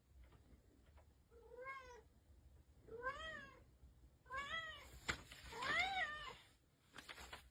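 Cat meowing four times, each meow rising then falling in pitch, with a short click between the third and fourth.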